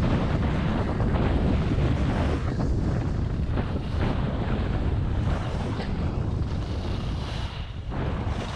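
Wind rushing and buffeting over the microphone of a skier's camera during a fast descent, mixed with the hiss of skis on groomed snow. It eases a little in the second half as the skier slows.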